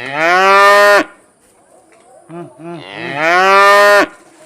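Cattle mooing: two long, loud moos, each rising in pitch and then held before stopping abruptly. A few short low calls come just before the second moo.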